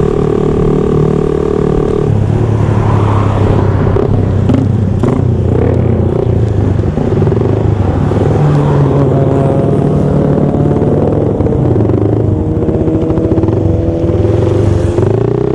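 Small motorcycle engines running and revving. The pitch holds steady for about two seconds, then rises and falls, and more than one engine is heard at once through the middle.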